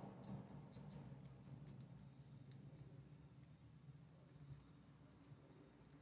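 Faint clicking of a cheap four-wheel combination padlock's number wheel being turned a notch at a time, its detents ticking as it turns under shackle tension. The clicks come thick and fast at first and thin out toward the end.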